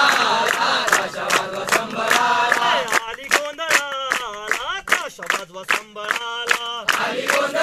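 A group of people chanting a song together, with quick, steady hand-clapping keeping the rhythm.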